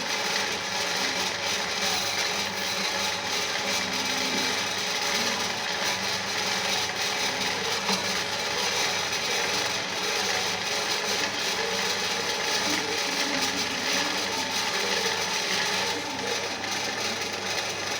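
Old-school DICKSON ice shaving machine running steadily, its motor and gear mechanism making a continuous mechanical whir with a low hum.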